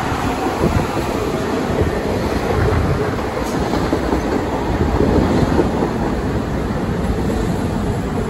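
Chicago 'L' Budd 2600-series rapid-transit cars moving along the track: a steady rumble of steel wheels on rail.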